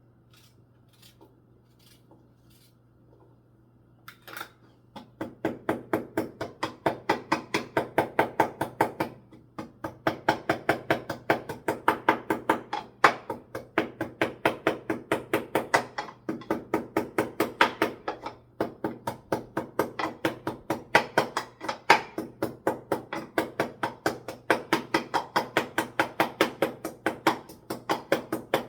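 Pestle pounding ginger into a paste in a mortar: a few faint taps, then from about four seconds in a steady run of sharp strikes, about four a second.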